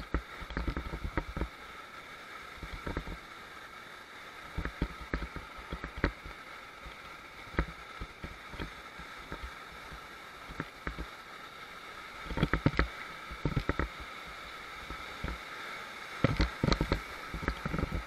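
Whitewater rapids rushing steadily past an inflatable raft, with repeated short thumps and knocks, bunched together about two-thirds of the way through and again near the end.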